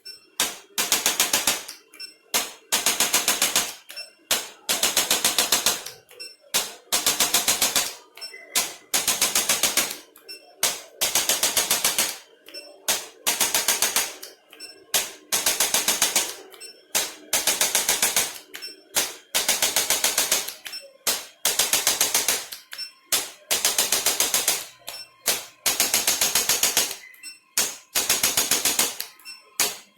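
Handheld electric percussion tool tapping very rapidly in repeated bursts of about a second, one burst every one and a half to two seconds, with a faint steady hum underneath.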